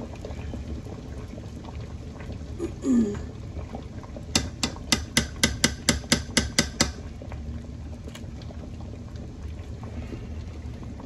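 Chicken broth boiling steadily in a large enamel pot. About four seconds in comes a quick, even run of about a dozen sharp taps, roughly five a second, lasting a couple of seconds and louder than the boiling.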